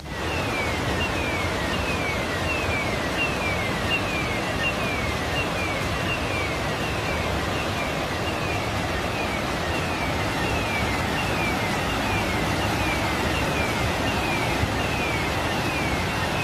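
Fast-flowing floodwater rushing through a street, a steady roar of water. Over it a faint high tone sweeps downward again and again, about one and a half times a second.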